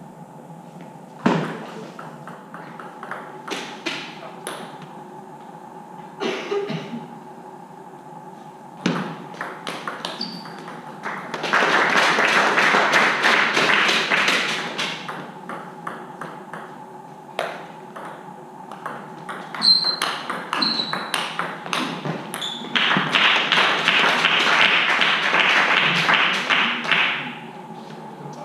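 Table tennis ball clicking off the bats and table during rallies, single sharp ticks a second or so apart. Twice there is a burst of clapping lasting about four seconds, and a faint steady hum runs underneath.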